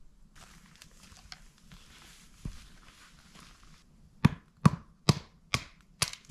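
Firewood being split by hand: a wooden baton struck down on a log, five sharp wooden knocks about two a second near the end, after a few seconds of faint rustling.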